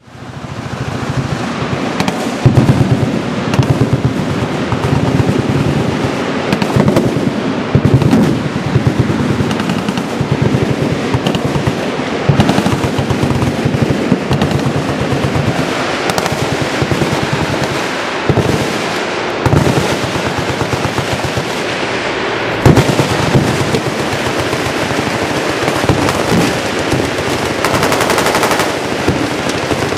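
Machine guns firing on a firing line: a dense, continuous crackle of overlapping automatic bursts, with louder single reports standing out every few seconds. It fades in over the first second.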